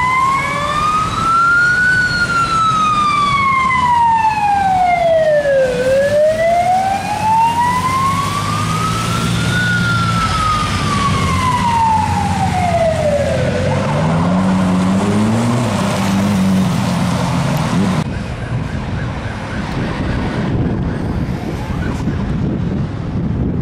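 Police car siren on a slow wail, its pitch rising and falling twice over about twelve seconds above city traffic, then fading out. After that come traffic noise and, later, wind buffeting the microphone.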